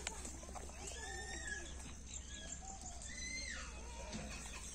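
Nursing puppies whimpering: a few short, thin, high whines. The clearest, about three seconds in, holds high and then slides down in pitch.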